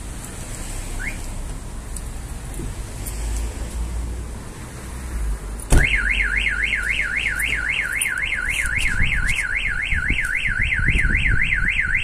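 Low street and wind rumble, then about six seconds in a sharp click and a car alarm siren starts. The siren warbles up and down steadily, about three times a second. It is the armed alarm being triggered by the door being opened with the key.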